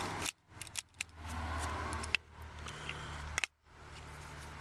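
Scattered sharp clicks and rustling from handling a locked seatbelt retractor as the webbing is tugged, over a steady low hum. The sound drops out abruptly twice.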